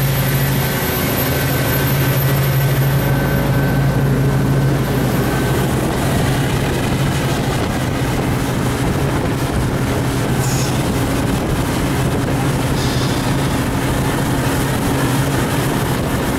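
Boat's Volvo Penta engine running steadily under way with a constant low hum, under a loud rush of water and spray along the hull.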